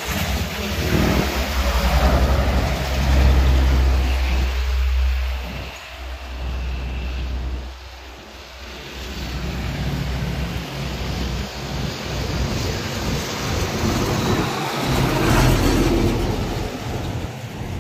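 Road traffic passing close by: motorcycles and trucks go by with engine rumble and tyre noise, loudest in the first few seconds. After a lull, a loaded cargo truck's diesel engine and tyres build to a close pass near the end.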